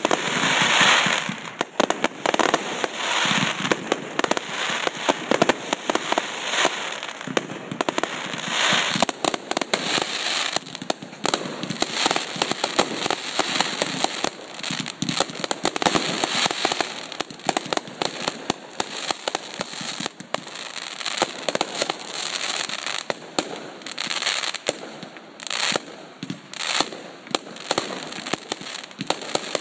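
Fireworks going off in quick succession: a dense, unbroken run of sharp bangs, pops and crackling from aerial bursts, with sparking ground fountains at the start.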